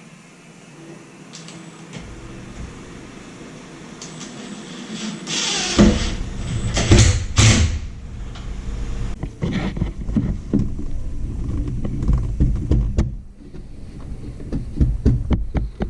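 Hand chisel working a painted wooden cabinet face frame, deepening a hinge mortise. It scrapes loudly a few seconds in, then gives a run of irregular sharp taps and knocks.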